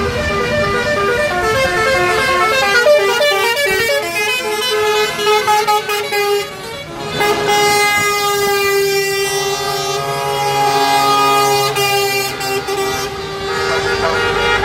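Truck air horns sounding as a convoy of lorries drives by: for the first six seconds or so a horn steps quickly through changing notes like a tune, then after a short lull long, steady horn blasts with several notes sounding together.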